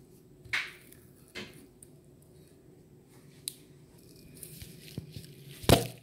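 Coconut husk being torn away in strips: a few short ripping sounds, the loudest near the end, with a small click in between.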